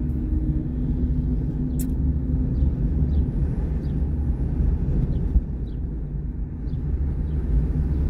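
Steady low rumble of a car in motion, heard from inside the cabin, with a brief click about two seconds in.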